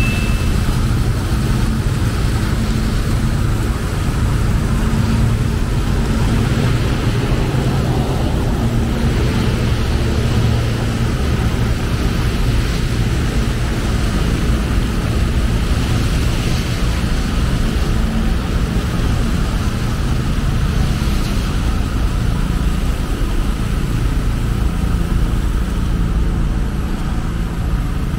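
Steady road traffic noise: a continuous low rumble of vehicle engines and tyres, with no single event standing out.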